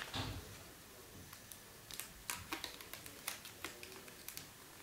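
A sheet of paper being rolled by hand into a long, thin tube: faint, irregular crackling ticks.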